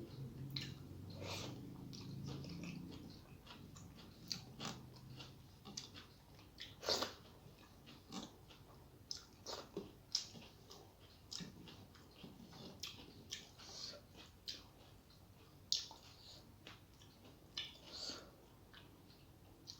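A person chewing and eating a rice-and-curry meal close to the microphone: irregular wet mouth clicks and small crunches, a few of them sharper and louder. A low hum runs under the first few seconds.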